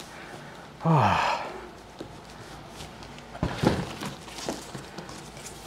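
A man's heavy, breathy exhale of effort, falling in pitch, about a second in, as he hefts a large cardboard drum box. Around three and a half seconds in comes a thump, then some rustling of the cardboard box being handled.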